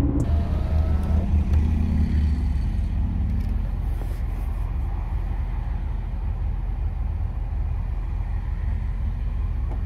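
Car's engine and road rumble heard from inside the cabin: louder for the first two or three seconds, then a steady low hum.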